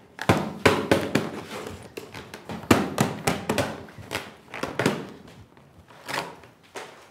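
Chestnut-wood splints clicking and knocking against each other as they are woven by hand into a basket. The knocks are irregular and sharp, and they thin out over the last couple of seconds.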